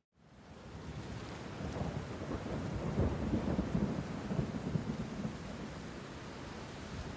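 Steady rain with a long rolling rumble of thunder. The sound fades in from silence at the start; the rumble builds about two seconds in, is loudest through the middle, then eases off.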